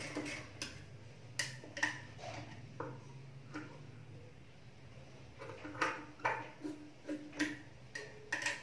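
Scissors snipping: about a dozen short, sharp metal clicks at uneven intervals, bunched in the middle and second half, after the industrial sewing machine's stitching dies away at the start. A low steady hum runs underneath.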